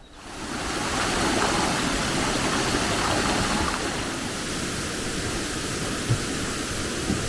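Steady rush of falling water from a waterfall, starting abruptly and easing slightly partway through.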